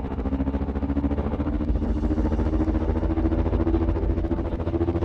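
Suspense drone of a thriller's score or sound design: a low, pulsing rumble with a tone that slowly rises in pitch.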